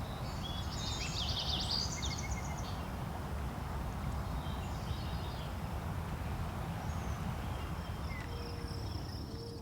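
A songbird sings a rapid high trilled phrase about a second in, with a fainter, shorter call around five seconds, over a steady low outdoor rumble.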